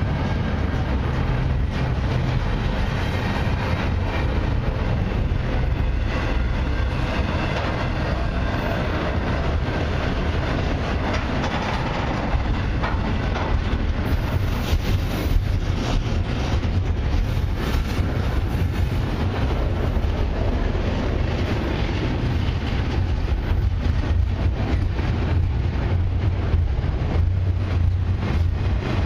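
Double-stack container well cars of a freight train rolling slowly past. Their steel wheels make a steady rumble on the rails, with irregular clicks and clanks that come more often in the second half.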